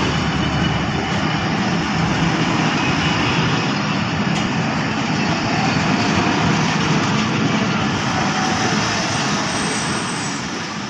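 Passenger train coaches rolling past on the rails below: a steady, loud rumble of wheels on track.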